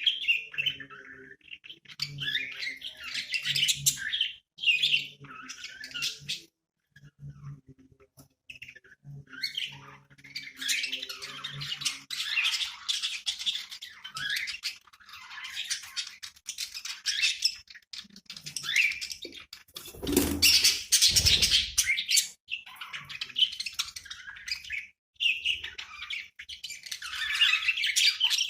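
Budgerigars chirping and chattering in bursts of quick high twitters with short pauses between them, and one louder, fuller burst about two-thirds of the way through.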